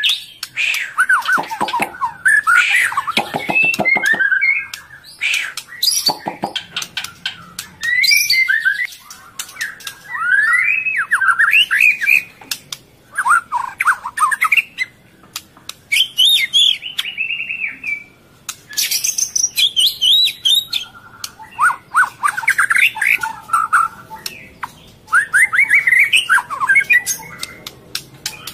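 Murai songbirds calling: repeated bursts of harsh, fast chattering squawks and chirps a second or two apart, from an adult feeding its chick.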